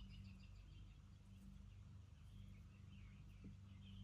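Faint bird chirps, many short calls in quick succession, over a steady low electrical hum.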